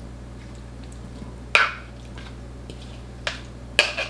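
A spoon scrapes wet diced ceviche out of a mixing bowl into a glass bowl, with a few sharp clicks as the spoon knocks against the bowls. The loudest click comes about a second and a half in, and two more come near the end.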